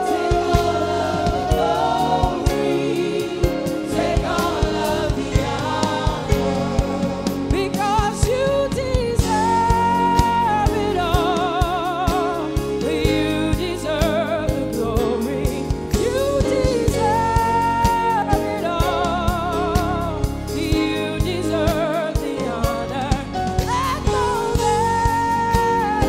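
Live gospel worship song: singers with a female lead, singing sustained lines with vibrato over keyboards and a drum kit.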